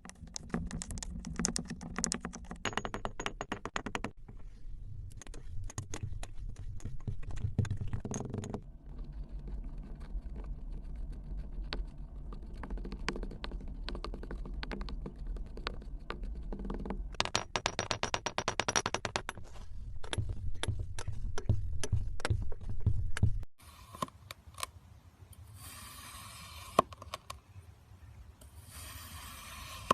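Kinetic sand being crushed and crumbled: a dense, grainy crackle of many tiny clicks, in several takes that change abruptly. In the last few seconds it is quieter, with two soft hissing stretches.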